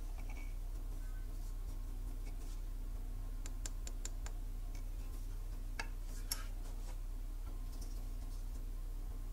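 Hands handling a Shure MV7+ microphone and its yoke mount, making light clicks and taps: four quick ticks about three and a half seconds in, then two sharper clicks a little past five and a half and six seconds. The clicks sit over a steady low hum.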